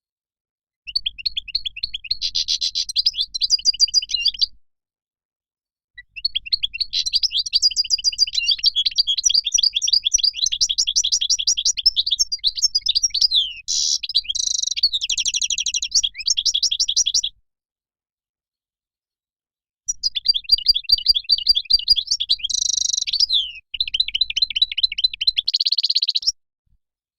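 European goldfinch song: long runs of rapid, high-pitched twittering phrases in three bursts with short pauses between.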